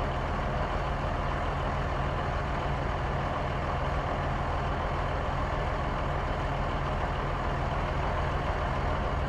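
Heavy truck engine running steadily at an even pitch.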